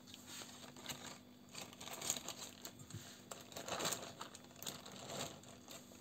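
Plastic zip-lock freezer bag crinkling and rustling in irregular bursts as chopped green onion is scooped by hand from a glass bowl into it.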